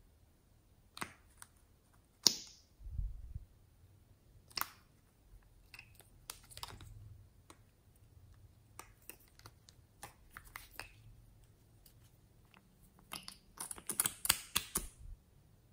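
Small plastic clicks and taps from handling lip gloss and lipstick tubes. There is a sharp click about two seconds in and scattered taps after it, then a quick run of clicks near the end as a lip gloss tube is uncapped and its wand drawn out.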